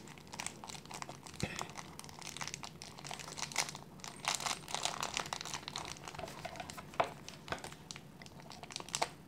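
Thin clear plastic wrapping crinkling and crackling as fingers pick at it to open it, with scissors brought up to cut the bag near the end.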